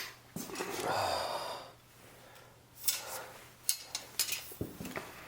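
Packaging of a set of metal decoy stakes being opened by hand: rustling, with a few sharp clicks and taps in the second half.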